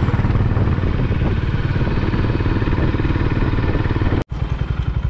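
Honda CB350RS's single-cylinder engine running under way uphill, a steady fast low thumping beat over road noise. The sound cuts out for an instant about four seconds in, then carries on.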